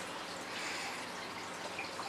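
Faint, steady rustling of hands handling and routing insulated wires.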